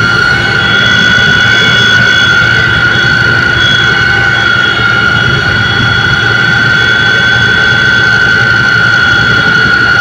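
Aircraft engine heard inside the cockpit in flight: a loud, steady drone with a constant high whine over it.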